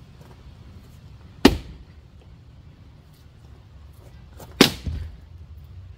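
Two hard blows of a splitting axe into a wet, stringy firewood round, about three seconds apart. The second blow is followed a moment later by a quicker, smaller knock.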